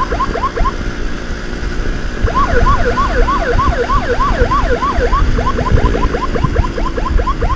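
Emergency siren on a fast yelp, about three or four rising-falling sweeps a second, with a break of a second or so near the start. Motorcycle engine and wind noise run underneath.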